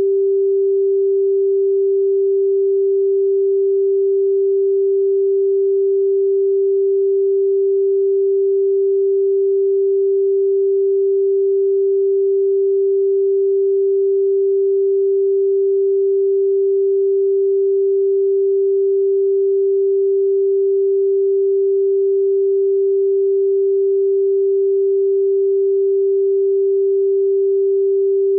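A pure sine tone at 392 Hz, the note G4, held steady and unbroken at constant loudness.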